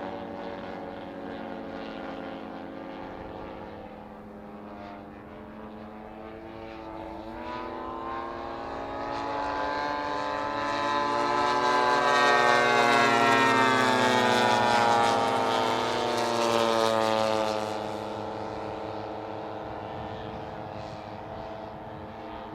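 Radio-controlled scale model Grumman F8F Bearcat warbirds flying, their piston engines and propellers droning overhead. The sound swells to a peak about halfway through, drops in pitch as the aircraft pass, then fades away.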